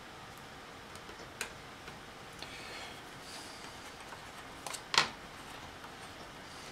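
Faint clicks and taps of a small screwdriver and fingers on a laptop hard drive's metal case while its cover screws are worked, with a soft rustle and one sharper click about five seconds in.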